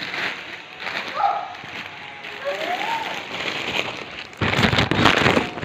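Packaging rustling and crinkling as a handbag is unwrapped, with a louder burst of crinkling near the end. Faint voices can be heard in the background.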